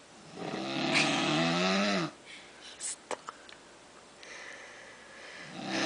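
A person snoring: a loud droning snore lasting about a second and a half, a few soft clicks, then a quieter breathy breath, with the next loud snore starting near the end.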